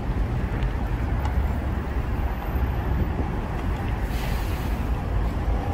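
Steady city street traffic rumble, with a short hiss about four seconds in.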